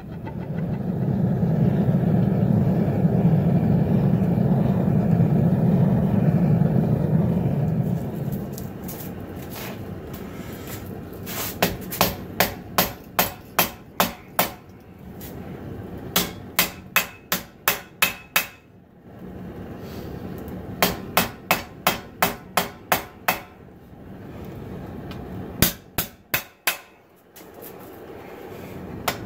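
A forge running with a steady roar for about the first eight seconds, then a hand hammer striking a red-hot 80CrV2 steel knife blank on a 66 lb steel anvil: runs of sharp blows, about two or three a second, with short pauses between runs, drawing out the blade's tip.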